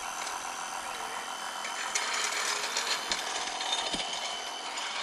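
Portable air compressor running with a fast buzzing chatter, getting louder about two seconds in, pumping air into a car tire through a hose on the valve.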